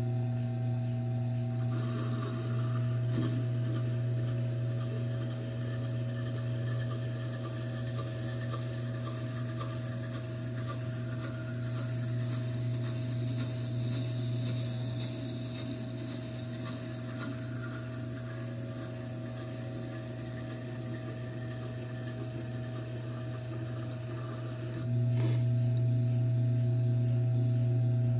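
Tormek T4 wet sharpening machine humming steadily while a steel knife blade in its jig is held against the wet grindstone, a steady scratchy rubbing. About 25 seconds in the grinding stops as the blade is lifted off, and only the motor hum is left.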